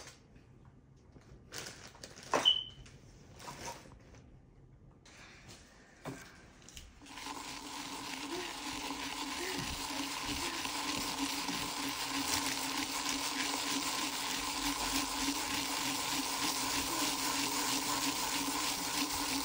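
A few light taps and clicks, then about seven seconds in a small electric rotary tool starts and runs steadily with a hum and hiss as its spinning polishing brush works paste over a coin.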